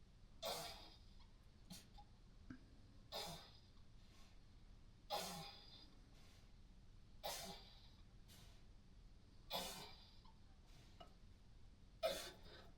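A ewe in labour breathing hard: six faint, rough, noisy breaths or grunts, each about half a second long and roughly two seconds apart.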